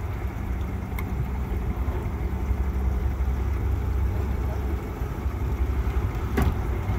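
Boat engine idling with a steady low rumble, with a sharp click about a second in and a louder knock near the end.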